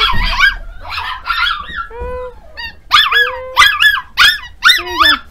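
A litter of miniature schnauzer puppies yipping and whining: high-pitched cries overlapping, with a quicker run of sharp yaps, about two a second, in the second half.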